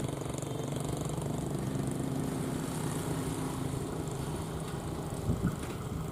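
An engine running steadily, a low drone whose pitch wavers and rises a little midway.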